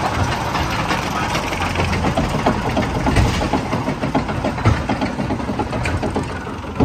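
Small steel family roller coaster train rumbling and clattering on its track as it climbs, with many irregular clicks and knocks over a steady low rumble.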